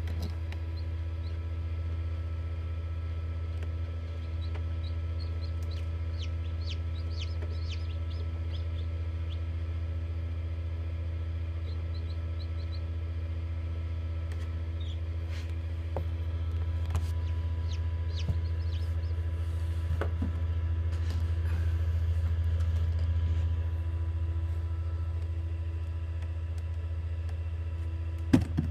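Hatching chicks peeping, with short high chirps that cluster early on and come again now and then, over the steady hum of a Hova-Bator incubator's fan. A short knock comes near the end.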